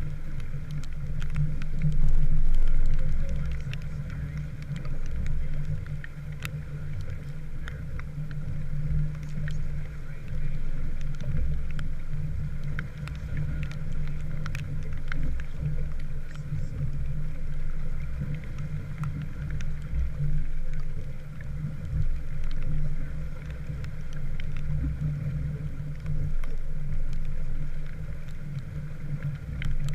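Steady low rumble aboard a small wooden sailboat under way, with scattered faint ticks through it.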